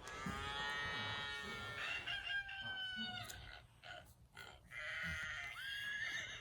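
A recorded rooster crowing, played by a children's animal sound book: two crows, the first long and the second shorter, with a pause between.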